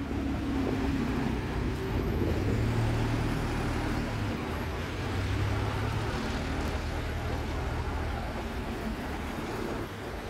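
Alexander Dennis Enviro200 single-deck diesel bus pulling away and driving off, its engine a steady drone mixed with street traffic, easing a little near the end as it moves off.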